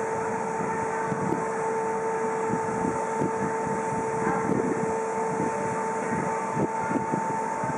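Electric locomotive humming with two steady tones over a hiss, with irregular low thumps of wind on the microphone.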